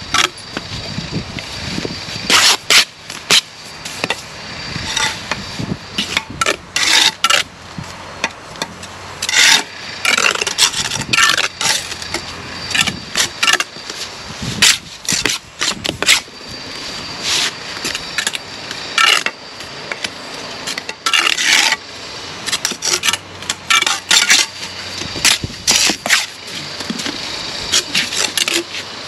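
Bricklaying trowel work: a steel trowel scraping and cutting mortar and tapping London bricks down into their bed, heard as an irregular run of short scrapes and knocks.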